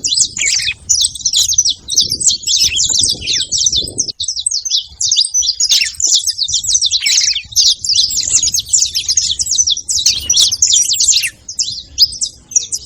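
Several saffron finches chirping and singing together in a dense, continuous stream of rapid high chirps and trills.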